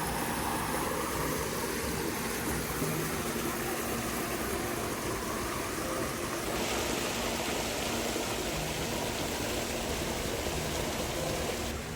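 Steady rushing of a small woodland stream, an even hiss of flowing water that grows a little brighter about halfway through.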